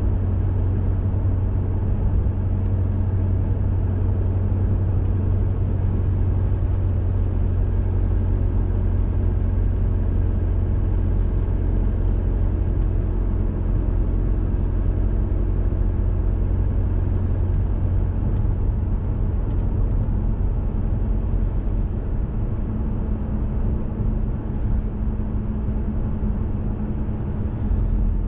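Car driving on a paved road, heard from inside the cabin: a steady low rumble of engine and tyre noise.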